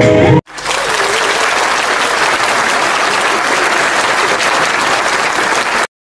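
Audience applauding steadily for about five seconds, then cutting off abruptly. Before it, music plays briefly at the start and breaks off sharply.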